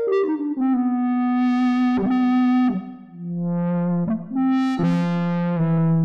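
Computer-processed electric guitar, the "Extended Guitar", playing synth-like sustained notes. It slides down into a long held low note, then strikes new notes about two, four and five seconds in, their tone swelling brighter and then mellowing.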